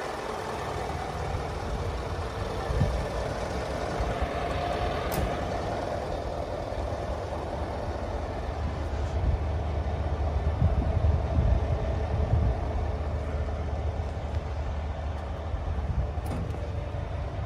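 Scania R440 truck's diesel engine idling, a steady low rumble, with a few faint clicks.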